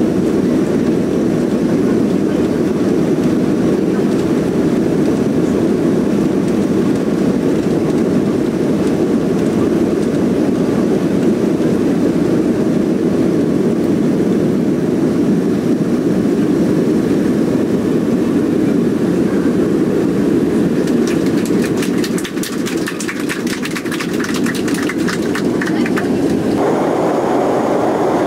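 Cabin noise of a Boeing 737 on its takeoff roll: the engines running at takeoff power, loud and steady. About three quarters of the way in, a few seconds of fast, rhythmic clattering from the wheels rolling on the runway. The sound changes abruptly about a second before the end.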